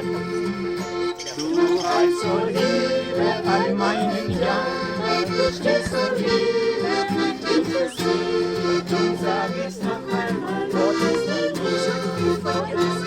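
Accordion music, with sustained chords and a steady bass drone beneath the melody.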